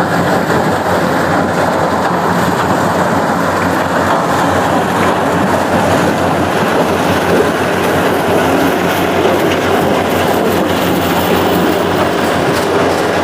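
Yanmar full-feed combine harvester running under load as it cuts and threshes corn: a steady engine drone under a dense, continuous mechanical clatter.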